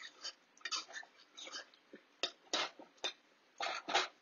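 Metal spoon stirring wet vegetable curry in a metal pot, with irregular clinks and scrapes against the pot, the strongest ones after about two seconds and near the end.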